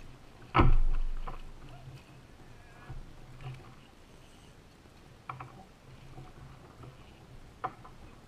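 A heavy thump against the kayak about half a second in, with a low boom that dies away over about a second. Several lighter knocks and rattles follow while a spinning reel is cranked and a small flounder is brought in.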